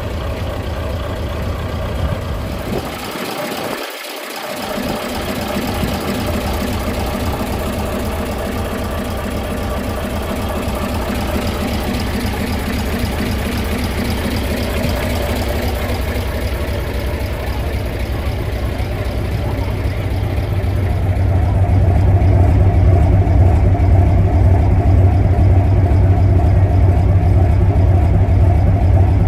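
Engine of a 1967 Scania Vabis LS 76 hot-rod truck running steadily, its low rumble briefly dropping out about four seconds in and growing louder and deeper about two-thirds of the way through.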